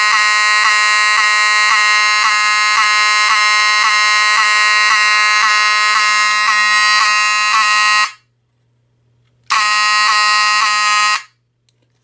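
Spectronics-branded 7002T-24 mechanical fire alarm horn sounding a loud, steady horn tone. It cuts out about eight seconds in, sounds again for a couple of seconds after a short gap, then stops.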